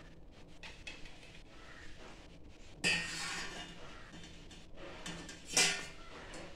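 Steel spoon clinking and scraping against stainless steel vessels as boiled eggs are lifted out of the pot and dropped into a bowl of cold water, with two louder clatters, about three seconds in and near the end.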